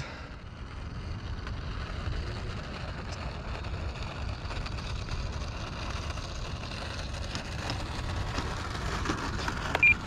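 Wind buffeting the microphone, with the Turbo Timber Evolution's electric motor and propeller whirring at taxi throttle, growing louder over the last few seconds as the plane taxis in close. A short high beep just before the end.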